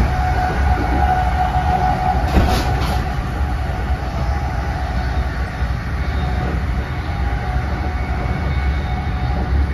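Interior ride noise of an NJ Transit Multilevel passenger coach running at speed: a steady low rumble of wheels on rail with a faint steady tone over it, and a brief hiss about two and a half seconds in.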